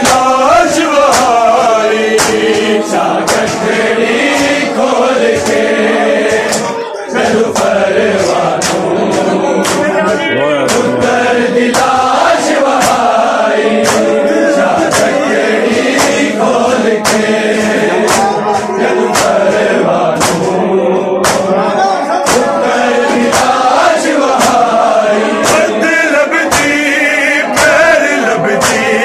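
A group of men chanting a Punjabi noha together, over a steady rhythm of hand slaps as the mourners beat their bare chests in matam.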